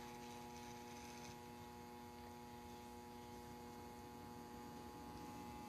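Faint, steady electrical mains hum: a low buzz made of a few unchanging tones.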